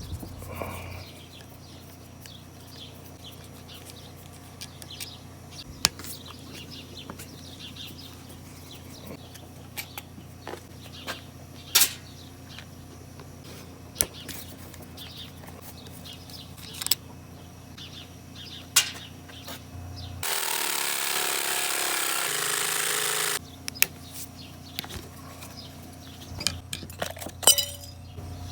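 Scattered metal clicks and taps of hand tools working on a gas water heater's control valve, a screwdriver being worked into a slot cut in a stuck screw. About twenty seconds in, a loud, even rushing noise lasts about three seconds and cuts off suddenly.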